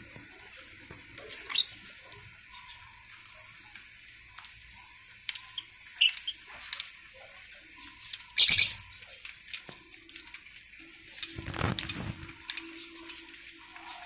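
Pet lovebirds and cockatiels moving about a wire cage and picking at seed: scattered light clicks and scratches, with a few louder sharp noises, the loudest about eight and a half seconds in and another, lower and fuller, near twelve seconds.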